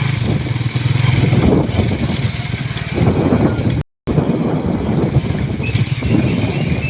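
Motor vehicle running along a road, a steady engine hum under broad road and wind noise. The sound cuts out completely for a moment about four seconds in, then resumes.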